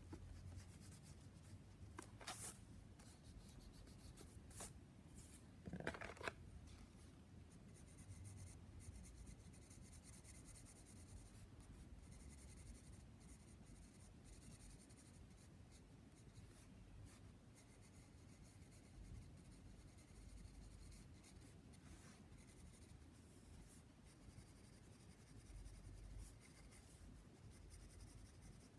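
Graphite pencil drawing and shading on paper: faint, soft scratching strokes. A couple of brief louder rubs come in the first several seconds, the loudest about six seconds in.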